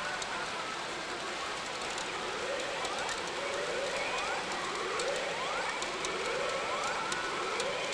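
Umi Monogatari pachinko machine playing its reach sound effects: a string of short rising glides, over the steady din of a busy pachinko parlour.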